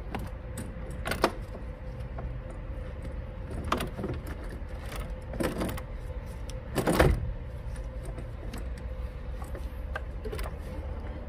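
A few scattered knocks and clunks as a new H7 AGM car battery is set down and shifted into its tray, the heaviest thud about seven seconds in, over a steady low background hum.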